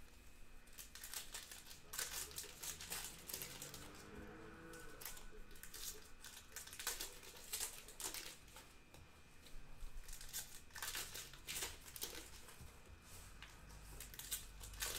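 Faint, intermittent crinkling and rustling of Panini Certified Football trading-card pack wrappers and cards being handled.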